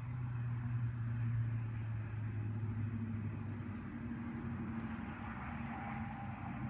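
Vehicle exhaust through Jones Full Boar Flow Deflector performance mufflers: a steady low drone that starts suddenly and fades after about four seconds, then engine and road noise swelling as the vehicle passes near the end.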